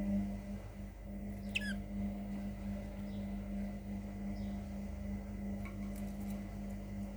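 A budgerigar gives one short, wavering high chirp about one and a half seconds in, with a few faint ticks near the end, over a steady low hum.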